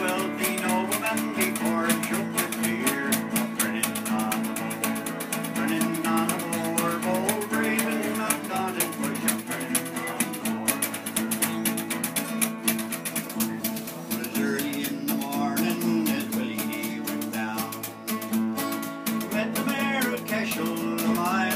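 Acoustic guitar strummed steadily in a folk song, with a cardboard box beaten in a quick steady rhythm as a makeshift drum.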